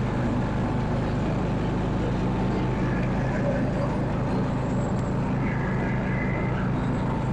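Simplicity rear-engine riding mower running steadily under load while it cuts grass with its blades engaged.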